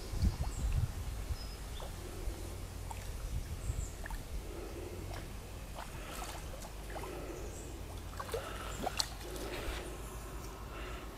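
Large hooked carp splashing at the surface close to the bank, with irregular water sloshing and dripping as it is drawn into a landing net.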